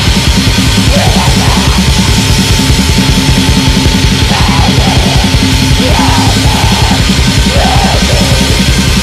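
Black metal with grindcore leanings: a dense wall of distorted guitars over fast, tightly packed drumming. A higher line swells up and falls away every second or two.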